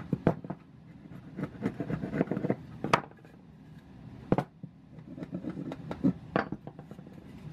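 Wood chisel paring and scraping out the bottom of a saw-cut notch in a wooden board, a run of short scraping strokes, broken by a few sharp knocks of wood and steel on the workbench as the board and chisel are handled.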